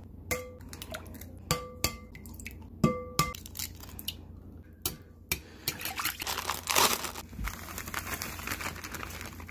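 Eggs knocked against the rim of a ceramic mixing bowl, about five sharp knocks in the first few seconds, each leaving the bowl ringing briefly. From about five seconds in, a rustling hiss as dry mix is poured from a plastic bag into the bowl.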